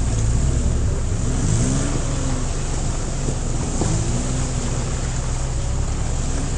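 Off-road vehicle engine running under way, its revs rising and falling a few times, over a steady rushing noise.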